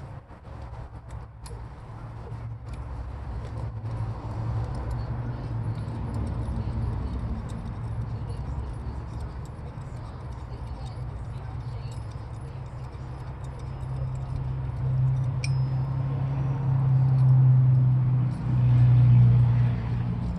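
Light metallic clinks and taps of tools and small metal parts being handled on a motorcycle's shift lever, over a steady low rumble that swells louder near the end.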